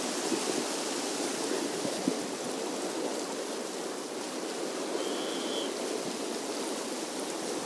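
Steady wash of calm sea water lapping against shoreline rocks, with a short high chirp about five seconds in.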